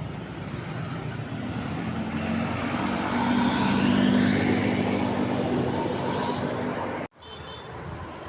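A large bus driving past: its engine and tyres grow louder to a peak about four seconds in, then fade. The sound cuts off abruptly about seven seconds in.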